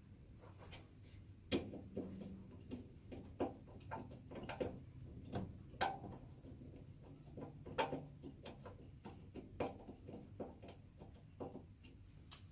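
Irregular clicks and light knocks of a metal screw, nut and wire cable clip being fiddled into a mounting hole of a rack enclosure, with a few sharper clicks among them.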